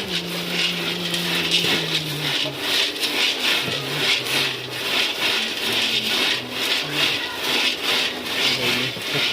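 Dry maize kernels being stirred and scraped around a hot pan for popping, a continuous rasping scrape made of repeated strokes. The kernels have not yet started to pop.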